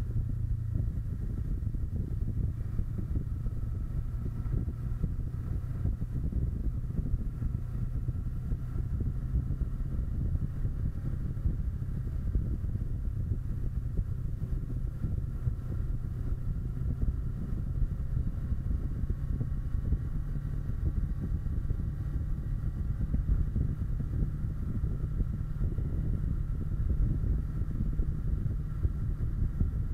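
Wind buffeting the microphone on a moving Kawasaki Versys 650, a steady low rumble, with the bike's parallel-twin engine running faintly underneath, its pitch drifting slightly with the throttle.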